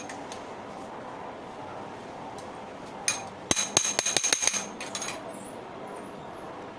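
A quick run of ringing metal taps and clinks lasting about two seconds, starting about halfway in: hand tools striking metal.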